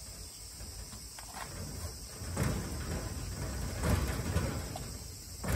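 Blue masking tape being pulled off the roll and pressed along the edge of a glass pane in a wooden window frame, making several short tearing sounds. Crickets chirp steadily and faintly underneath.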